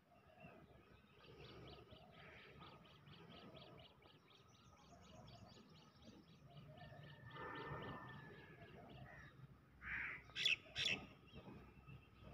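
Birds calling outdoors: a faint, rapid chirping about four or five times a second, then a few louder, harsh calls near the end.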